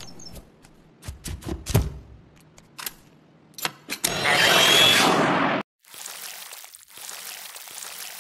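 A run of light clicks and taps, then a loud rushing whoosh about four seconds in that cuts off suddenly, followed by a fainter steady hiss.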